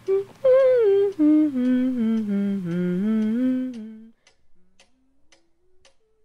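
A person humming a short tune that steps mostly downward, stopping about four seconds in. Faint, steady ticking follows, about three ticks a second.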